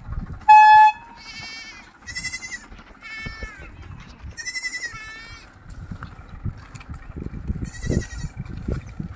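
Repeated high-pitched bleating calls from young livestock, about six of them, each around half a second long, with low irregular thuds of hooves or footsteps in the second half. A brief, loud, flat-pitched tone sounds about half a second in.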